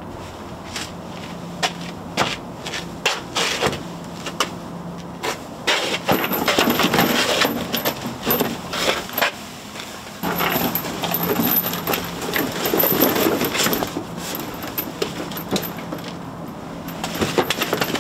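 Metal chain clinking and rattling against a cardboard box as it is handled: scattered knocks at first, then longer bursts of clatter.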